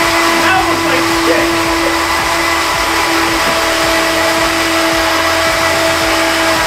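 Countertop blender motor running steadily at speed, blending a thick fast-food mixture, with a constant whine over the rushing motor noise.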